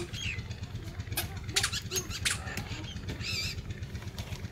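Outdoor background sound: a steady low hum with a few sharp clicks, and a short high wavering call about three seconds in.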